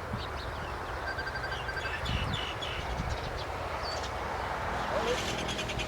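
Small birds chirping repeatedly in short high calls, with a quick run of evenly spaced pips about a second in, over a steady low rushing background noise.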